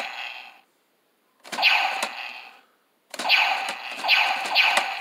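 Transformers Optimus Prime Blaster toy playing its regular electronic blaster-shot sound effect through its small speaker. The shot comes again and again: a hissing burst about a second long that fades out each time, about every one and a half seconds, with the last few coming back to back near the end.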